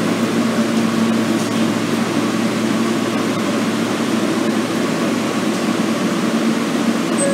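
An R160B New York City subway car running between stations, heard from inside the car: a steady rushing noise with a low, even hum underneath.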